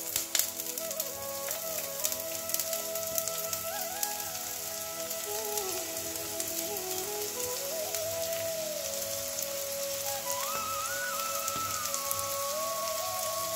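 Chopped onions sizzling in hot oil in a pot as they are pushed in from a plate, a steady frying hiss with a few light clicks near the start. A soft melody plays underneath.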